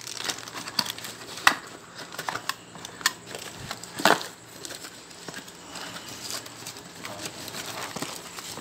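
A small cardboard box being opened and handled, with its plastic packaging rustling: scattered taps and clicks over soft rustling, the loudest tap about four seconds in.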